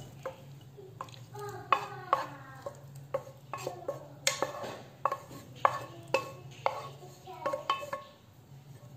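Wooden spatula scraping and knocking against a stone-coated nonstick frying pan as sautéed zucchini and mushrooms are pushed out into a ceramic bowl. The knocks come about every half second, some with a short ring.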